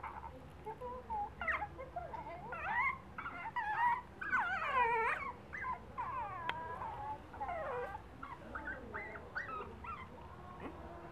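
Pug puppy crying in a string of short, high, wavering whines that slide up and down in pitch, the loudest a long falling cry about four to five seconds in, the cries thinning out near the end.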